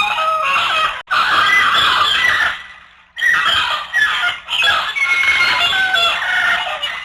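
Many birds calling over one another in dense, overlapping squawks and clucks, in four loud bursts with short lulls between them.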